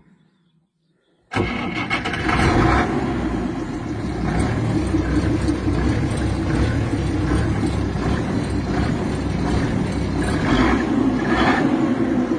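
The engine of a 1962 Bedford truck, not run for two years, starting up and then running steadily, heard from inside the cab. It comes in abruptly about a second in.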